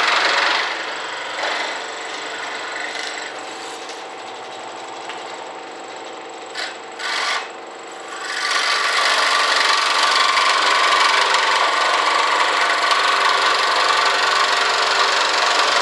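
Electric bench sander sanding a long wooden strip, a steady rasping grind over the motor. The wood eases off the paper after about half a second, leaving the machine running lighter with two brief touches, then is pressed back on a little past halfway for sustained sanding.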